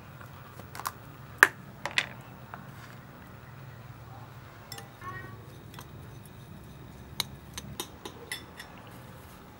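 Metal spoon clinking against a ceramic bowl several times while salt is scooped from a plastic tub and stirred into snail meat. The sharpest clink comes about a second and a half in, with more light clinks near the end.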